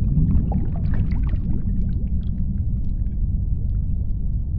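Underwater ambience: a steady low rumble with bubbling and short rising squeaks, busiest in the first two seconds and then thinning to scattered faint ticks.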